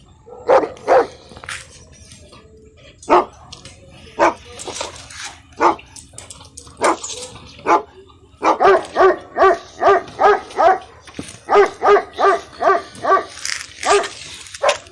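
Dogs, a German shepherd and a Phu Quoc ridgeback, barking: single barks a second or so apart at first, then quick runs of barks, about four a second, in the second half.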